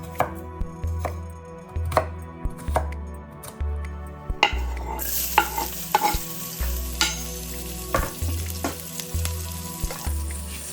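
Food frying in a hot pan: a sizzle starts about four and a half seconds in and carries on, with sharp knocks and clicks of kitchen utensils throughout.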